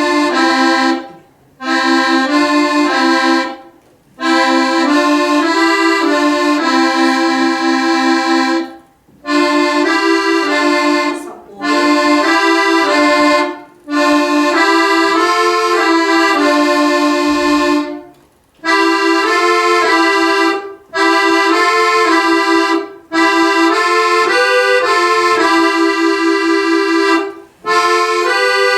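Accordion playing a legato exercise in double notes, thirds in the right hand, as a sequence of short phrases moved up from one white key to the next. Each phrase lasts a couple of seconds, with a brief break between phrases.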